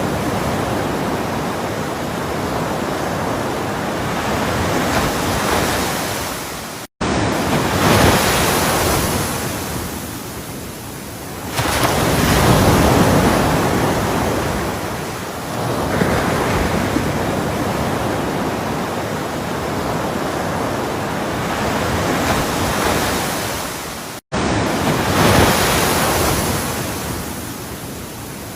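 Ocean surf: waves breaking and rushing in, swelling and easing every few seconds in a steady wash. The sound cuts out for an instant twice, at edit joins.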